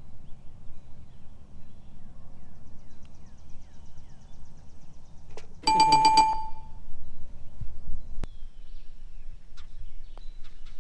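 A single sharp metallic ring about six seconds in, lasting about a second, over a steady low rumble, with a short click about two seconds later. On a putting green this is most likely a golf putt: a putter striking the ball or the ball dropping into the metal cup.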